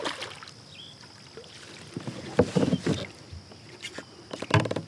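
A hooked smallmouth bass splashing at the surface beside a kayak and being scooped into a landing net: scattered short splashes and knocks, busiest about two and a half seconds in and again just before the end.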